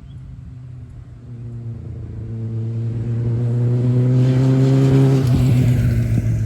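Kawasaki ZX-9R inline-four sport bike riding by, its engine note growing louder and rising slightly in pitch over several seconds. It is loudest about five seconds in, then turns rougher and starts to fall away.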